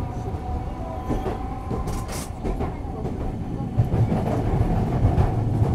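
Nagasaki Electric Tramway streetcar running between stops, heard from inside the car: a steady low rumble of wheels on rail with a faint motor hum and a few clicks from the track. It grows louder about four seconds in.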